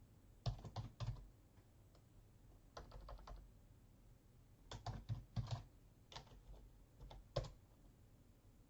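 Typing on a computer keyboard: four short runs of keystrokes with brief pauses between them.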